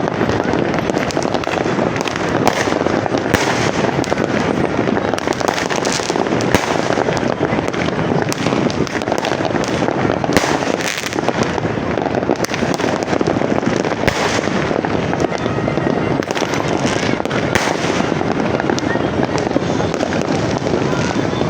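Many New Year's fireworks going off at once in a continuous, dense barrage of bangs and crackles, with no break.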